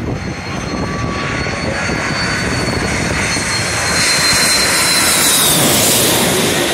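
Jet airliner's twin engines on low final approach, a high whine over a dense rushing noise that grows louder as the plane closes in. The whine drops in pitch as it passes directly overhead near the end.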